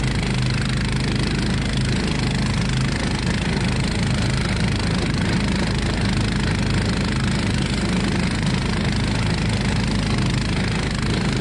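Toro Power Max 252cc two-stage snowblower's single-cylinder engine running steadily.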